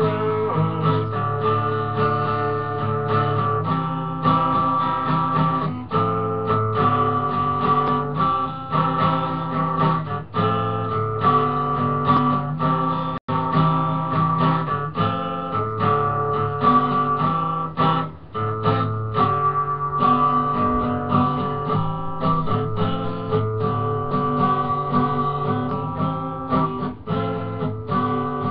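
Acoustic guitar music, strummed chords changing every second or two, with a momentary dropout about halfway through.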